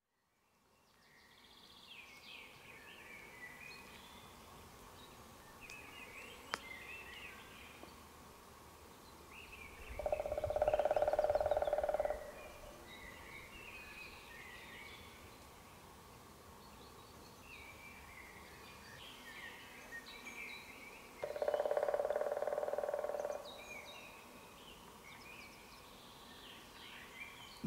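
Wild birds singing and chirping, fading in from silence. Twice, about ten seconds apart, a louder steady tone of unknown source sounds for about two seconds, and there is a single sharp click about six seconds in.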